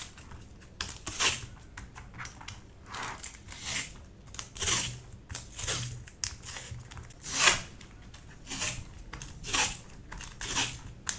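Tape being pulled and torn off the roll for a tape mod on a mechanical keyboard's PCB: about ten short ripping sounds, roughly one a second.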